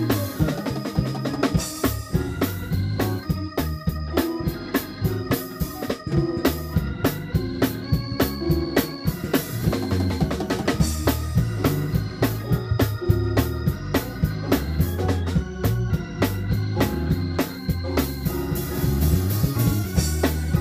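Live gospel band playing: organ chords held over a steady drum-kit groove, with electric bass underneath and keyboards.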